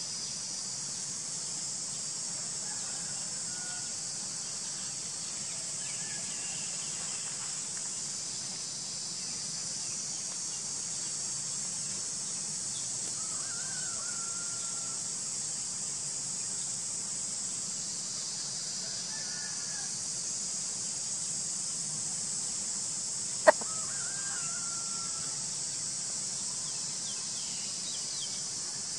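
Faint short bird calls every few seconds, over a steady high hiss. A single sharp click about two-thirds of the way through.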